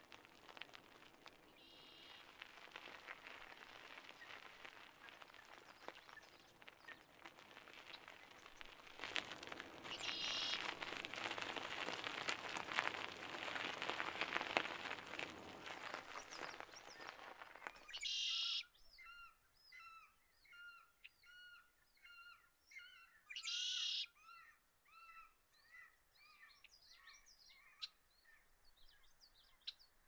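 Bicycle tyres rolling, the crunch and rush building over the first half and stopping abruptly as the bike halts. Then birds call repeatedly in series of short chirping notes, broken twice by louder, harsher calls.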